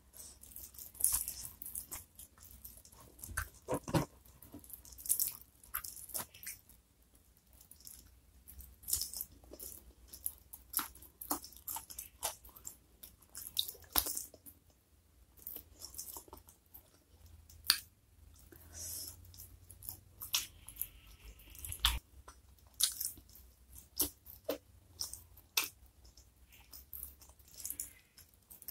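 Close-miked eating: a person chewing and crunching sambal-covered fried chicken and tearing it apart with the fingers, with many short, irregular crunches and wet clicks.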